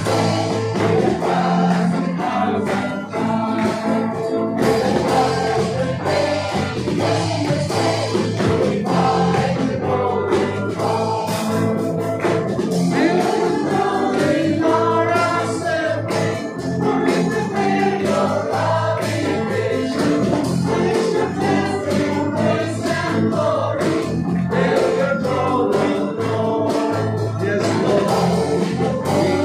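Live worship band playing a praise song: a man singing lead into a microphone over electric guitar, acoustic guitar and keyboard.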